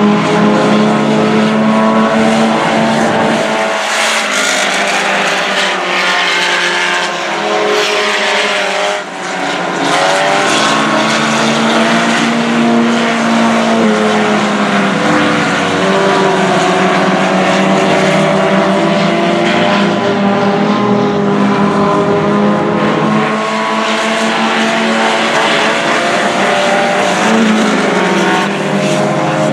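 Several IMCA Sport Compact race cars' four-cylinder engines running hard at racing speed, with their pitch rising and falling as the cars lap and pass. Now and then a single car stands out above the rest.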